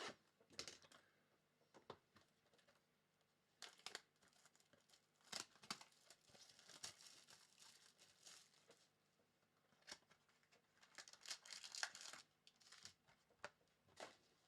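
Faint, irregular crinkling and tearing of plastic wrapping as sealed trading-card boxes and packs are opened, in quick rustling bursts.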